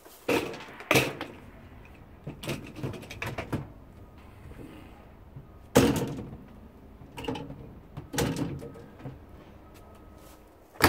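Knocks, clanks and rattles of an old dishwasher's wire dish racks and door being moved by hand, about eight sharp hits spread through, the loudest about six seconds in.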